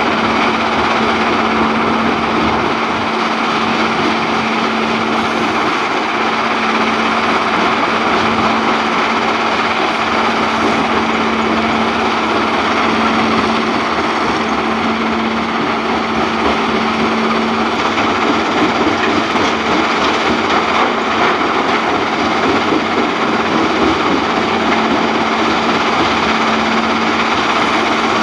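Steady din of quarry machinery: mobile jaw and cone crushers running together with the diesel engine of a Liebherr R946 crawler excavator, with a steady low hum underneath that weakens about two-thirds of the way through.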